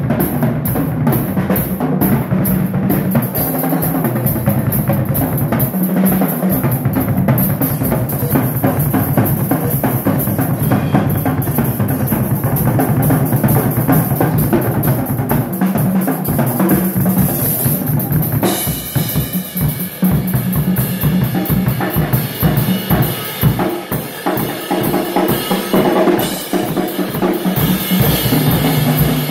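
Two full drum kits, one a Gretsch, played together in a busy, loud drum jam: bass drums, snares, toms and cymbals going without a break, with the playing changing a little past the middle.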